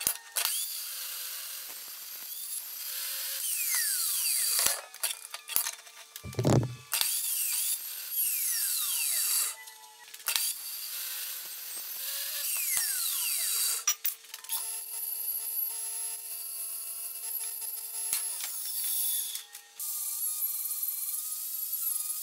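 Evolution toothed-blade metal-cutting chop saw cutting through thick-walled steel box section several times, its motor whine falling away as the blade spins down after cuts. In the last couple of seconds an angle grinder runs on the cut steel.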